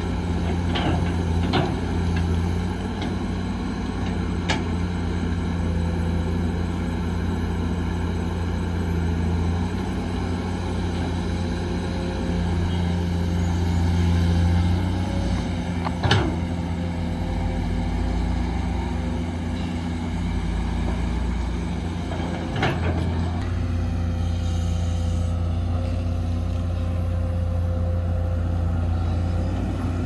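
Diesel engines of an excavator and dump trucks running steadily, with a few sharp knocks, the loudest about halfway through and again about three quarters of the way through.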